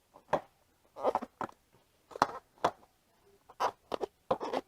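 Rubber inner tube of a Zoom360 stroller wheel being pulled out from under the tire, rubbing against the tire and rim in a series of short, irregular scrapes.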